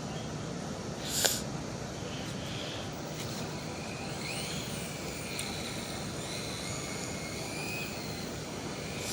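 Small remote-control toy helicopter's electric motor and rotor whining, its pitch rising and falling as the throttle changes, over a steady background hiss. A sharp, brief knock about a second in is the loudest sound.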